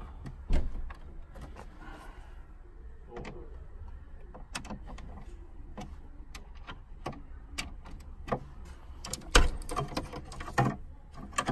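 Scattered clicks and knocks of car interior trim parts being handled, with the loudest knock about nine seconds in.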